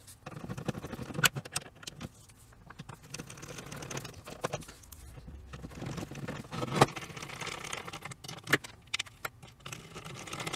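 Screwdriver and small screws working on the metal end plate of a Line6 FB4 foot pedal's aluminium case as it is screwed back together: scattered small metallic clicks and scrapes, with a few sharper clicks among them.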